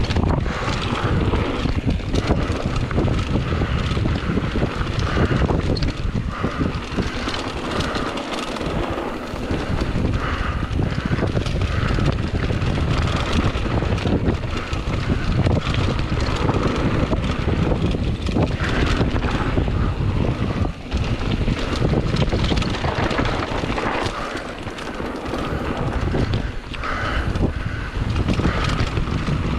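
Wind buffeting the microphone over the continuous rumble and rattle of a mountain bike running down a dirt singletrack, with irregular knocks as the wheels hit bumps.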